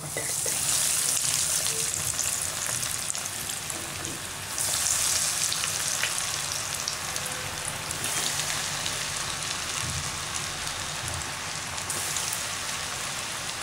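Snake gourd rings coated in gram-flour batter and rusk crumbs sizzling as they deep-fry in hot oil. The sizzle starts sharply as a ring goes into the oil and flares up again about four and a half seconds in.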